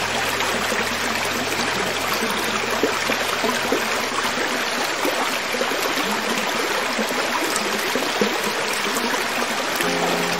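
A creek running steadily over rocks, a continuous rushing and trickling of water. A low held tone fades out about four seconds in, and soft music notes begin near the end.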